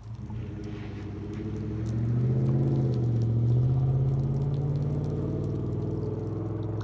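2017 Ford F-150 pickup being driven, its engine note climbing in pitch and loudness about two seconds in as it accelerates, then holding steady.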